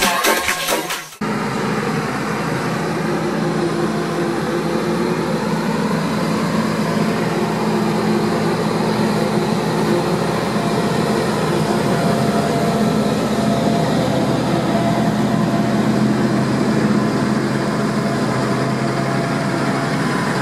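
Dance music cuts off about a second in. After that, heavy farm machinery runs steadily: the diesel engines of a DeWulf carrot harvester and a Valtra tractor working a muddy field.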